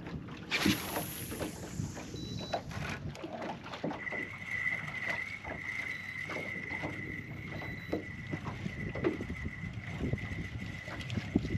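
Small boat drifting, with water lapping and knocking against the hull and wind on the microphone. A brief high hiss comes about half a second in, and a steady high whine sets in about four seconds in.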